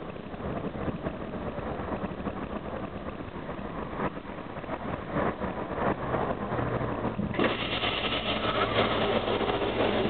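Karosa B741 articulated city bus under way, heard from inside at the front: steady engine and road noise. About six seconds in a low steady hum comes in, and about a second later the sound grows louder and brighter.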